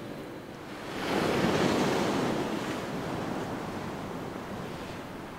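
Sea wave breaking on a stony shore: the surf swells up about a second in, then slowly washes out.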